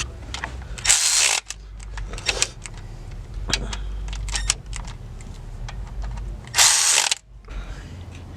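Ratchet wrench working on the engine: two short loud runs of ratcheting, about a second in and again near seven seconds, with scattered clicks of the tool between them.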